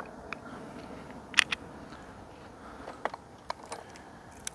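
A few light metallic clicks and taps as a chainsaw's bar and chain are handled by hand, the two sharpest a little over a second in.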